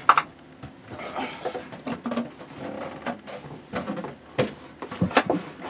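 Tools and objects being handled and set down: scattered knocks and clicks with some rustling, the sharpest knocks coming close together near the end.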